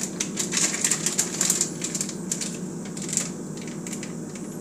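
Plastic bag of shredded taco blend cheese crinkling and crackling in quick irregular clicks as its zip seal is pressed to close it, over a steady low hum.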